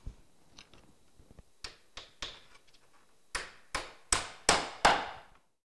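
Hammer driving a 40mm ring shank nail through a dry verge unit: a few light taps to start the nail, then five harder blows in quick succession, each ringing briefly.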